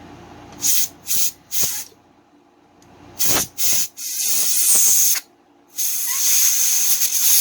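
Can of compressed air (air duster) spraying a loud hiss in blasts, blowing residue out of a phone's Lightning charging port: three quick short bursts about a second in, two more a little later, then two long blasts.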